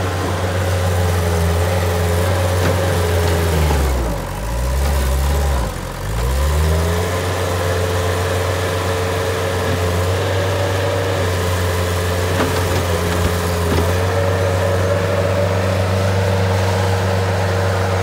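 Bobcat 773 skid-steer loader's diesel engine running steadily, with a steady whine over it. Its engine speed dips and comes back up between about four and six and a half seconds in.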